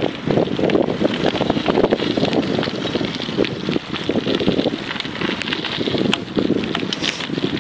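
Wind buffeting the microphone of a bike-mounted or handheld camera, mixed with mountain-bike tyres rolling over a gravel trail. Many small clicks and rattles run through the sound as the bike and camera shake over the stones.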